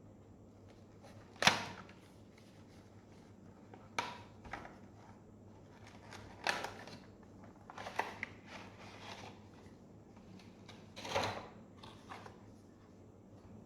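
Earbud box packaging being handled and opened: about five separate sharp knocks and rustles a few seconds apart, the first and loudest about a second and a half in.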